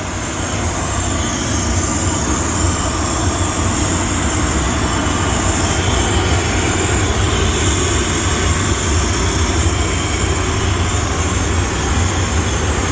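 Steady machinery drone: a loud low hum with a hiss on top, swelling slightly in the first couple of seconds and then holding level.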